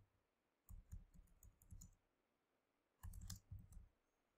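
Faint computer keyboard typing: two short runs of keystrokes, one about a second in and another about three seconds in.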